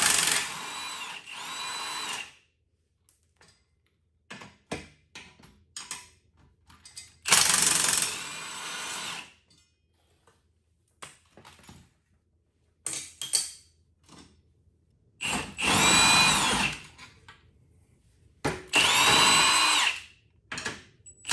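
Cordless drill run in about five short bursts of one to two seconds, its motor pitch rising and falling with each run, working the fasteners of an ATV's foot peg. Small clicks and knocks of metal parts fall in the gaps between runs.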